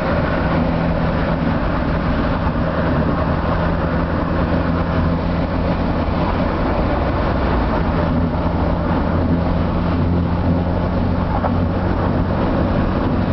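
Car engine droning steadily at cruising speed, heard from inside the cabin, with a constant rush of tyre and wind noise.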